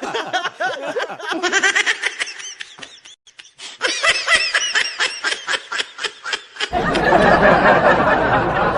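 Laughter in rapid, repeated bursts, breaking off briefly about three seconds in and then resuming. Near the end a loud, noisy fart sound starts and carries on.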